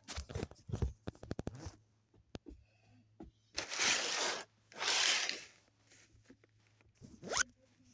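Rustling and handling noise: a run of quick clicks in the first two seconds, then two short bursts of rustling, like plastic being crumpled or torn, near the middle.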